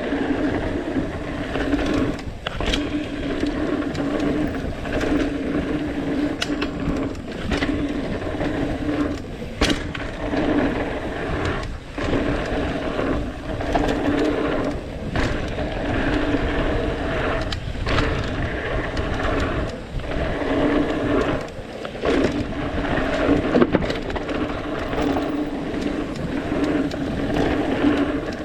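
Mountain bike descending a rough downhill trail: tyres rolling over dirt and rock, with frequent knocks and rattles from the bike and a steady buzzing hum that cuts out and returns every few seconds.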